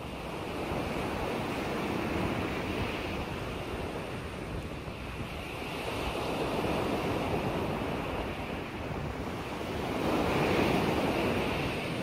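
Choppy lake waves washing in, the sound swelling and easing about every four seconds. Wind buffets the microphone with a low rumble.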